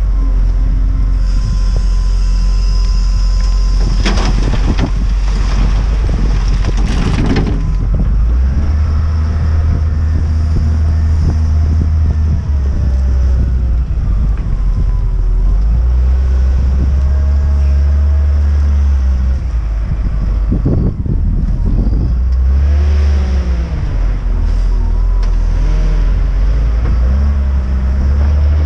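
Volvo L60E wheel loader's diesel engine running and revving as the loader works, with a rattle of gravel tipping from the bucket into a metal trailer a few seconds in. Later the engine rises and falls in pitch as the loader backs away and drives on.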